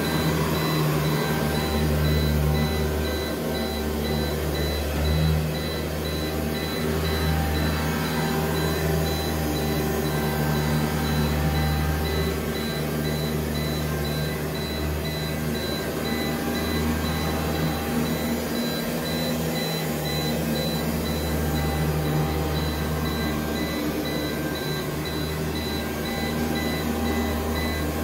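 Hoover U4007 upright vacuum cleaner running steadily on carpet, its motor giving a strong low hum. Over it, an APC BVN900M1 battery backup powering the vacuum on battery sounds a run of short, high, evenly spaced alarm beeps, the sign that the unit is straining under the load.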